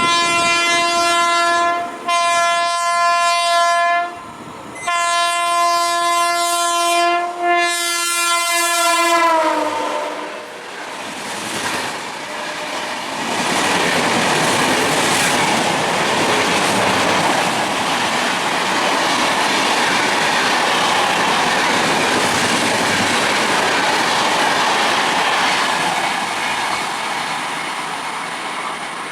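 Indian Railways express train sounding its locomotive horn in four blasts, the last one falling in pitch as the locomotive passes. The train then rushes past with a steady roar and wheel clatter that slowly fades near the end.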